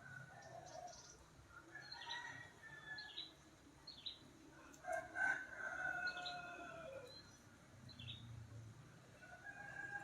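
A rooster crowing once about five seconds in, a long call that falls at the end, with other birds chirping briefly throughout. Faint tropical rain hisses underneath.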